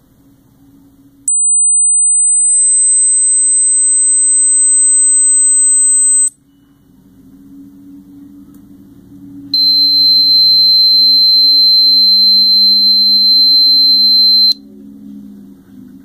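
Two dog-whistle tones: a very high steady whistle held for about five seconds, then after a short pause a lower steady whistle for another five seconds, each starting and cutting off abruptly.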